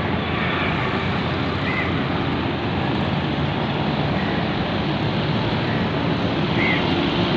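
Steady road traffic noise from a busy city street, with a couple of faint short high chirps.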